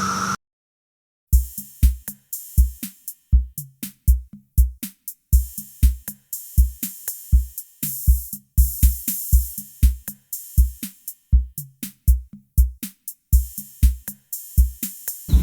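Background music: an electronic drum-machine beat of kick drum and snare/hi-hat, starting after about a second of silence and keeping a steady rhythm.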